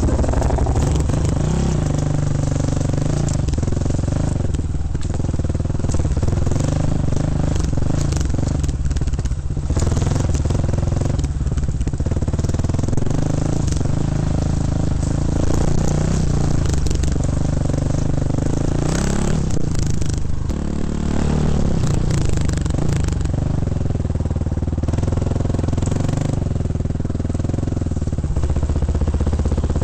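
Dirt bike engine running under load as it is ridden, heard from on the bike, its revs rising and falling over and over, with rattling and clatter from the bike over rough ground.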